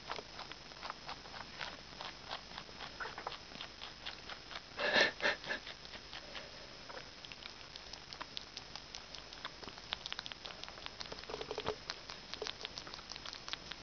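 Rabbit chewing juicy pineapple close to the microphone: rapid, crunchy, slurpy chewing clicks several times a second, with a brief louder burst about five seconds in.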